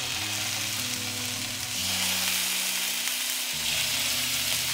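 Thin strips of coypu meat sizzling in hot sunflower oil in a frying pan as more pieces are laid in. The sizzle grows louder about two seconds in.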